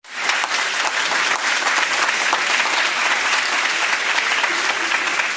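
A crowd applauding: many hands clapping at once in a dense, steady patter that starts suddenly.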